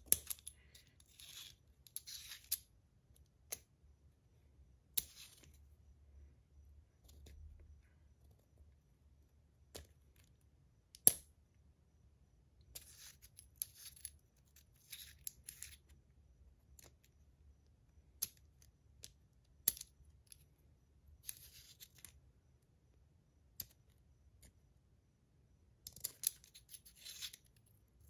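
Aluminum parts of a PillBug fidget spinner clicking and scraping as they are worked apart by hand: scattered light clicks, short scratchy scrapes, and one sharp click partway through.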